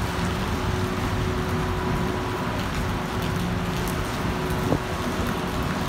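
Steady wash of heavy rain and car traffic on a wet street, with one short knock near the end.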